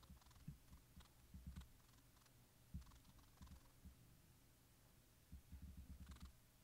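Near silence, with faint, irregular low thuds and a few soft clicks.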